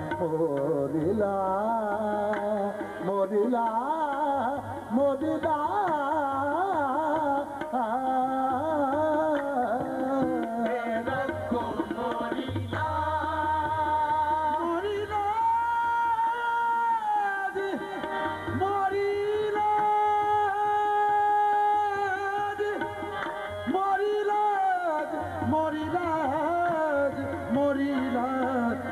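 Qawwali performed live: voices singing ornamented melodic lines over two harmoniums and tabla, with long held notes through the middle.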